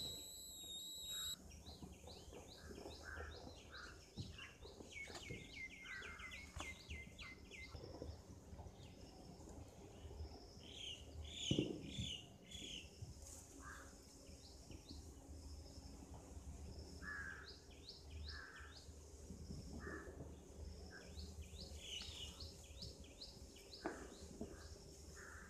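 Faint outdoor ambience of small birds chirping repeatedly, with short rapid call series. About halfway through there is one brief, louder sharp sound.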